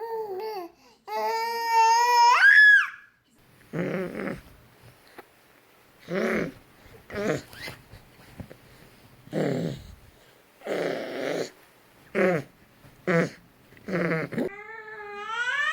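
Infant babbling and squealing: a long, loud squeal rising in pitch in the first few seconds, then a string of short separate coos and grunts, and another rising squeal near the end.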